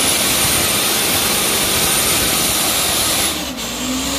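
Loaded Mitsubishi Fuso Canter truck's diesel engine revving hard under load as it drives up a slippery mud track, easing off for a moment about three and a half seconds in.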